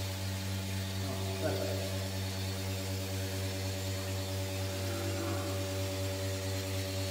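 Portable single-bucket milking machine running: its motor and pump give a steady, even hum with no change in speed.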